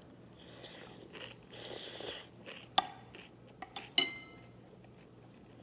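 Eating cold noodles: a short slurping, chewing noise, then utensils clicking against the bowl a few times. The last, loudest strike rings briefly.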